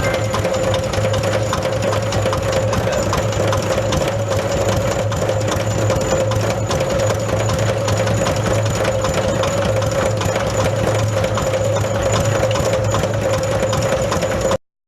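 Rice husk grinding mill running steadily under power, a continuous mechanical drone with a steady whine, cutting off suddenly near the end.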